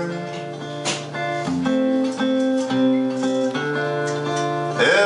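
Acoustic guitar strummed, its chords ringing and changing about once a second, with no singing over it; a man's singing voice comes back in at the very end.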